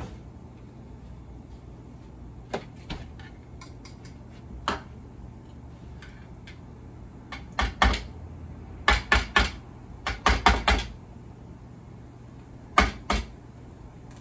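Sharp knocks and clatters of a bowl and utensils being handled on a kitchen countertop. There are a few single knocks early, then quick clusters of two to four knocks in the second half.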